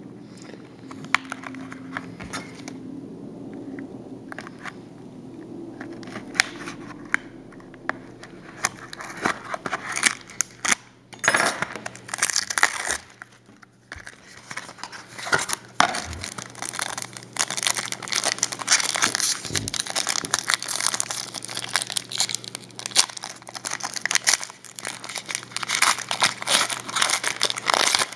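A trading-card pack wrapper being handled and opened: scattered light clicks at first, then steady crinkling and crackling of the wrapper from about a third of the way through.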